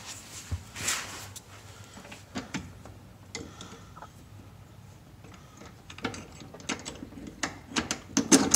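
Metal parts clicking and knocking as a coilover's lower end is worked into place and bolted to a rear lower control arm by hand. The clicks are scattered at first, then come thicker over the last couple of seconds, the loudest just before the end.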